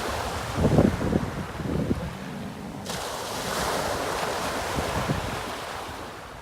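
Wind gusting against the microphone over a steady rushing hiss, fading down near the end.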